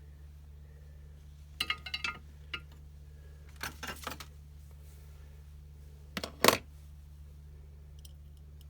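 Light metallic clinks and taps of small tools and parts being handled during soldering work on a battery pack, in a few short clusters, the loudest about six and a half seconds in, over a steady low hum.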